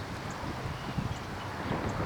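Wind rumbling on the microphone, with a few soft low knocks.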